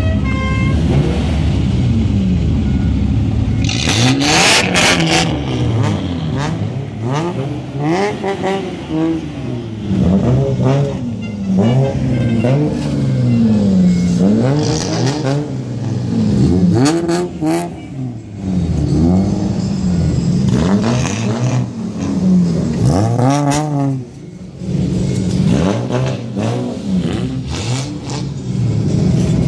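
Bozozoku-style modified cars with straight-through exhausts revving their engines over and over as they roll past one after another, the pitch swelling up and dropping back in quick rhythmic blips. There is a burst of sharp cracks about four to five seconds in.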